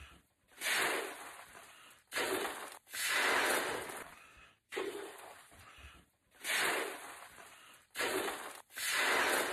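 A large latex balloon being blown up by mouth: about four long puffs of breath into the balloon, each separated by a shorter, quick breath.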